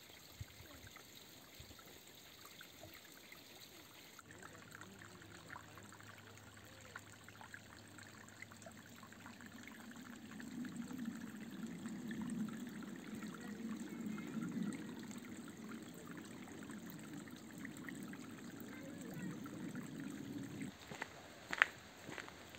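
Small woodland brook trickling faintly over stones; the water sound grows fuller and lower from about ten seconds in, then drops away shortly before a sharp click near the end.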